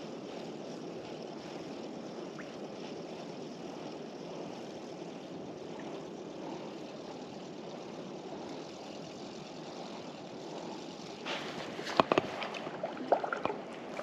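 Steady washing of wind-driven water against a kayak's hull. Near the end, a few sharp knocks and clicks as the spinning rod and reel are handled in the boat.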